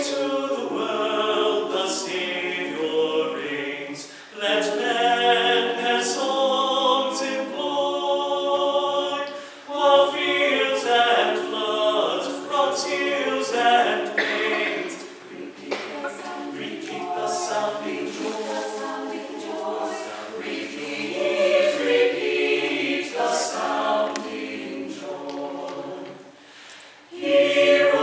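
A small mixed choir of men's and women's voices singing a cappella, in sung phrases with short breaks about 4 and 10 seconds in and again near the end.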